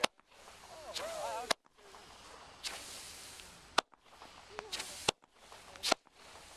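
Fireworks going off: about five sharp bangs at uneven intervals, with a hissing, crackling sound between some of them. Voices call out briefly about a second in.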